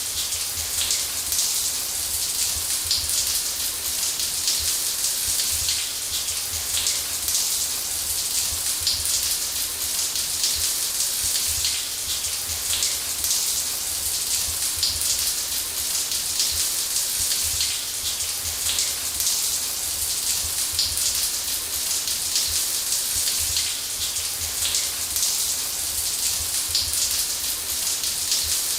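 Shower spray running steadily: a dense even hiss of water falling and spattering, with a low rumble underneath.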